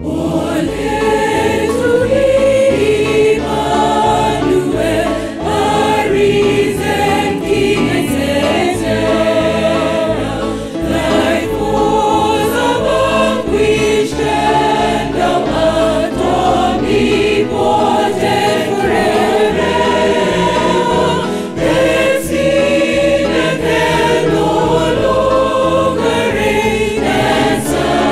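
Church choir of men and women singing a gospel song in harmony, with a low bass line moving in steady steps beneath the voices.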